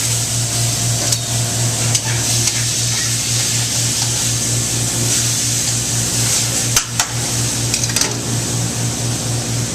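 Meat, garlic and red wine sizzling in a pan, a steady hiss over a constant low hum, with a few sharp clinks of a utensil against the pan, the loudest about seven seconds in.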